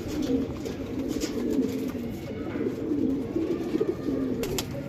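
Domestic pigeons cooing: low, wavering coos that overlap and run on steadily, with a couple of sharp clicks near the end.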